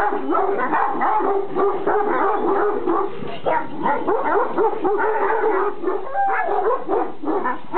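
Kangal shepherd dogs barking and yelping, several at once, in rapid short overlapping calls.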